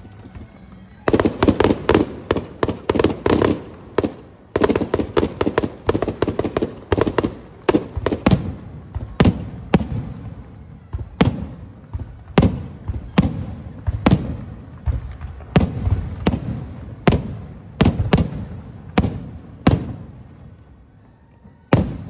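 Aerial fireworks shells bursting in a dense run of rapid bangs for the first several seconds, then single bursts about one or two a second. They thin out toward the end, with one last bang just before it closes.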